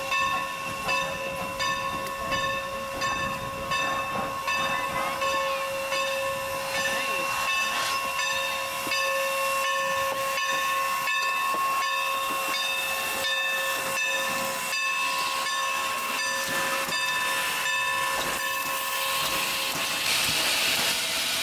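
Steam locomotive standing with steam up: a steady high whine and a continuous hiss of steam, with soft regular beats under it. Near the end the whine stops and the hissing gets louder.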